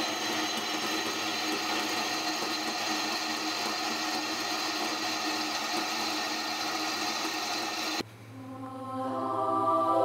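Electric drill running with its bit cutting through steel plate: a steady machine whine with cutting noise, which stops suddenly about eight seconds in. Soft background music with held notes then fades up.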